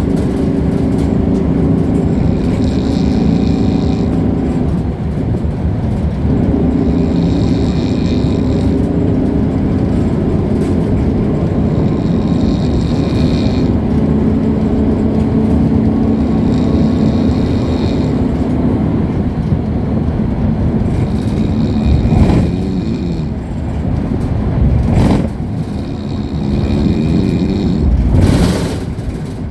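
TNSTC bus's diesel engine running at speed, a steady loud drone with road rumble, heard from inside the bus. A passenger snores through it, a breath about every four to five seconds. A few sharp knocks come near the end.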